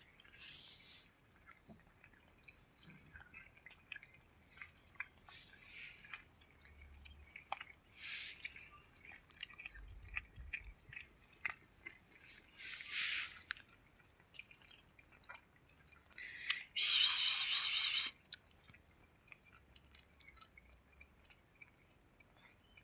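A cat eating, with small wet chewing and smacking clicks. A few short hissy rustles come through it, the loudest lasting about a second and a half about three-quarters of the way through.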